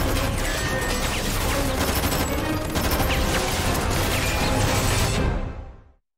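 Many automatic rifles firing at once in a sustained volley, over dramatic score music. The whole mix fades out to silence near the end.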